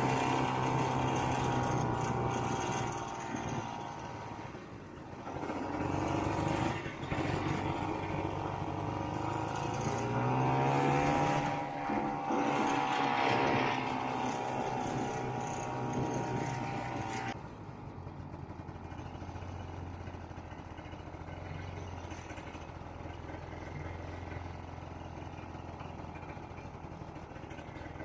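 Vintage Ski-Doo Olympic snowmobile's two-stroke engine running as the sled rides along, its revs rising and falling with the throttle. About 17 seconds in the throttle is let off and the engine drops to a quieter, steady low idle.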